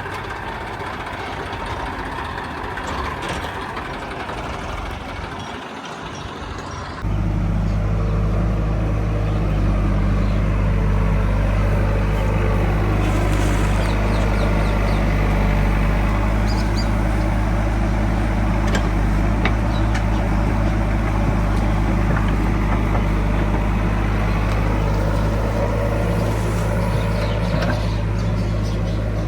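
Heavy diesel machinery running steadily. About seven seconds in it switches abruptly to a louder, close, steady low engine drone that holds to the end.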